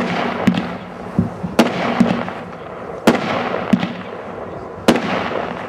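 Legend 'Commando Operation' 500-gram consumer fireworks cake firing its shots: a sharp bang about every second and a half, with smaller pops between, each trailing off into a fading hiss.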